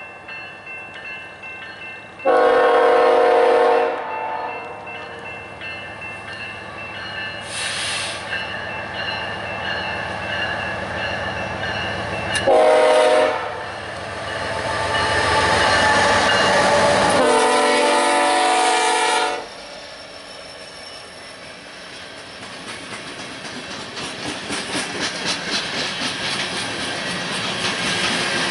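Freight locomotive's multi-chime air horn sounding three blasts over the steady noise of a passing freight train: a long one about two seconds in, a short one around twelve seconds and a long one around seventeen seconds. Near the end the wheels clack rhythmically as the cars roll past.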